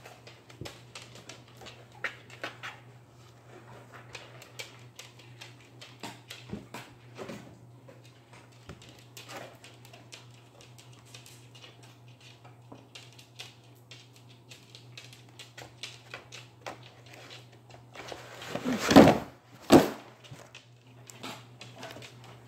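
A kitten moving about inside a cardboard cat-food box: scattered light scratching, rustling and tapping of cardboard, with two loud bumps of the box late on, the first longer and louder than the second.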